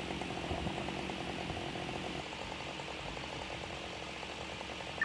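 A firefighter's gas-powered saw running steadily on the roof, cutting a ventilation hole over the fire.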